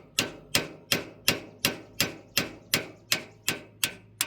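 Hammer striking a steel punch in a steady run of sharp, ringing metal blows, about three a second, to drive out a rusted-in pin.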